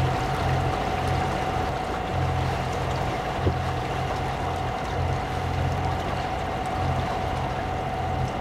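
Beneteau Oceanis 40 sailboat under way at low speed, with water rushing along the hull, a constant steady tone from the running boat, and wind buffeting the microphone in uneven low rumbles every second or two. A single click about three and a half seconds in.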